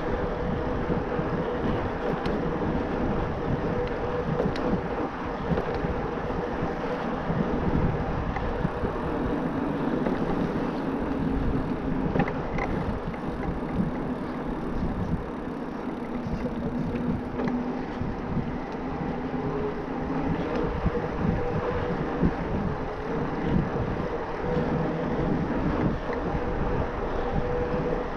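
Wind rushing over an action camera's microphone and tyre noise from an e-mountain bike riding at speed, with a steady hum throughout and a second, lower hum for several seconds in the middle.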